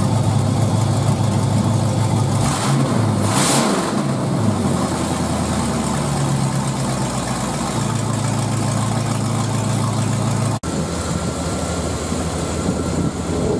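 A 5.9 L Magnum V8, bored .030 over, running through a temporary straight-pipe exhaust: it idles loudly, revs up and back down about three seconds in, then settles into a steady idle. Near the end the sound cuts abruptly to the engine running a little more quietly.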